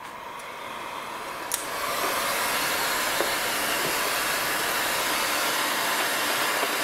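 Stanley hot air gun running, blowing a steady hiss of hot air onto a plastic drinks bottle to heat-shrink it. The hiss grows louder over the first two seconds, then holds steady, with a single click about a second and a half in.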